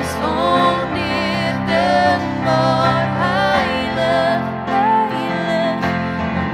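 Slow, gentle church worship music: a wavering melody line over held chords.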